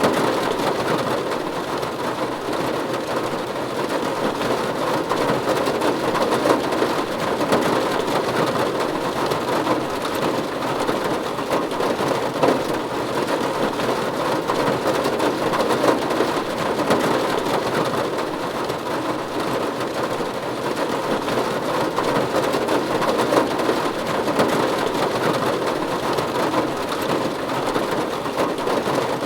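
Steady rain falling on a roof, an even, continuous patter with no breaks.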